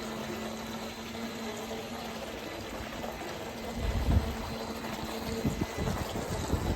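Water churning as a brushless RC racing boat runs across a swimming pool, with a faint steady hum and a few low rumbles about four seconds in and near the end.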